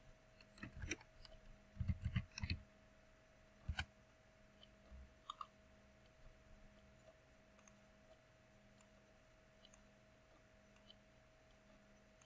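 Faint, scattered computer mouse clicks at an irregular pace over a thin, steady hum.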